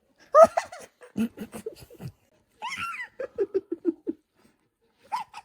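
People laughing: two runs of rhythmic laughter, with a few short vocal sounds near the start and the end.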